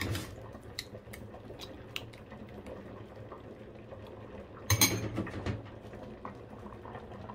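Spoon and ceramic bowl knocking and clinking as a bowl of cooked sago is handled, with one louder clatter about five seconds in. Under it runs a low steady hum and the faint bubbling of a simmering pot.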